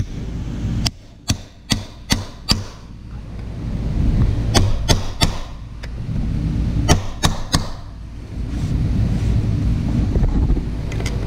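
Sharp taps of a screwdriver against the steel mounting bracket of an air conditioner fan motor, in three quick runs of four or five knocks, with a low rumble in the background between runs.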